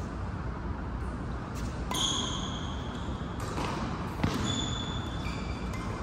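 Badminton rally: racket strikes on the shuttlecock, two sharp hits about two seconds apart with the louder one a little past the middle. Each hit is followed by a brief high ringing tone.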